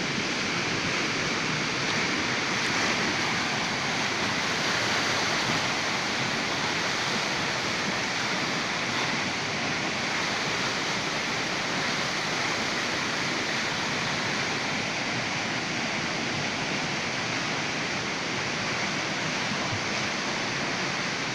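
A river in flood, overflowing its banks: a steady, unbroken rush of fast floodwater.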